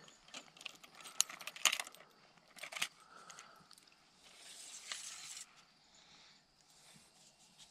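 Small metallic clicks and light rattles of fishing tackle being handled: a spinning reel, a telescopic rod and a lure. The clicks come in a cluster about a second or two in, with a few more later and a soft rustle around the fifth second.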